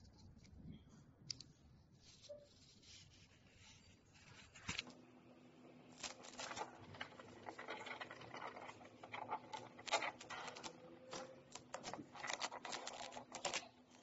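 UV DTF transfer sticker being handled: peeled off its backing sheet, rubbed down with the fingers, then its clear plastic transfer film peeled away, heard as faint crackles and scratches that grow denser in the second half. A low steady hum comes in about five seconds in.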